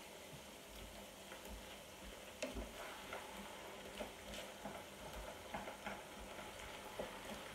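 Diced potatoes frying in oil in a frying pan with a faint, steady sizzle, while a wooden spatula turns them, scraping and knocking lightly on the pan now and then.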